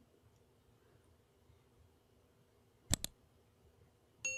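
Faint room tone, then two quick mouse-click sounds about three seconds in, and a bright bell chime that starts near the end: the sound effect of an animated subscribe button being clicked.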